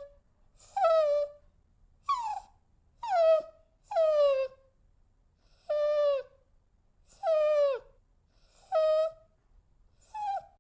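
A dog whining: a series of about eight short, high-pitched whines, each one sliding down in pitch, roughly one a second with brief silences between them.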